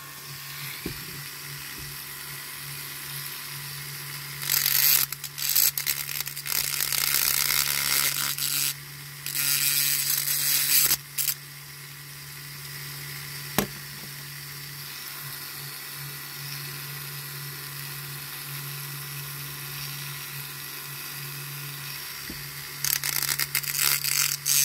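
Small rotary tool running at its lowest speed with a steady hum, breaking into bursts of grinding hiss from about five to eleven seconds in and again near the end as it grinds down the peened-over end of a die-cast toy's wheel axle.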